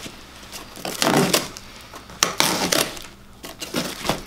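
Paper wrapping being unwrapped by hand, crinkling and rustling in a few short bursts with small clicks between.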